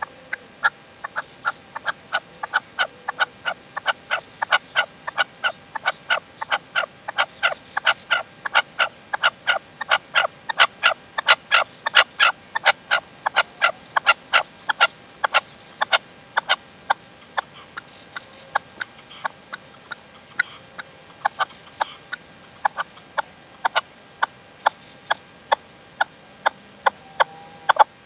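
Caged male red-legged partridge decoy calling: a long run of short, sharp clucking notes, about three or four a second, loudest midway and fainter toward the end.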